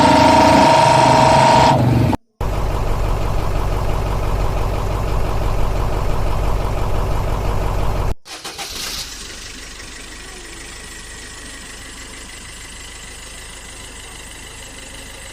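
Engine-like running sound in three cut segments. A loud steady tone lasts under two seconds. A loud, evenly pulsing engine run follows, then a much quieter steady running noise after a sudden cut about eight seconds in.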